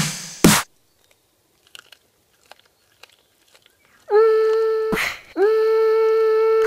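Electronic music: a sharp hit, then about three seconds of near silence with a few faint clicks. A held, buzzy synth tone comes back about four seconds in, cut by another hit near the middle.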